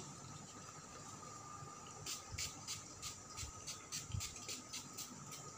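Maybelline setting spray pump bottle spritzed at the face, a quick run of about a dozen short hisses, three to four a second, starting about two seconds in.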